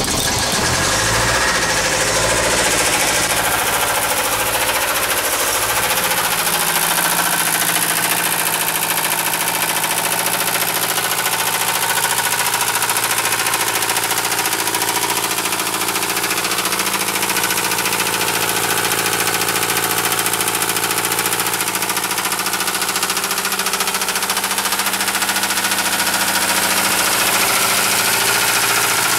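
Mercedes-Benz 220D four-cylinder diesel engine running at a steady idle just after starting, settling over the first few seconds. It has a rod knock from having been run low on motor oil.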